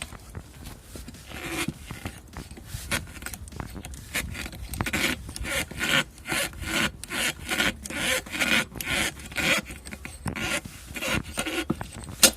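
Rhythmic creaking and grating from the front suspension of a Chevrolet Aveo, repeating about twice a second, with a sharp knock near the end. The creak comes from the rear rubber-metal bushing (silent block) of the front lower control arm, which is torn and separating from its outer sleeve.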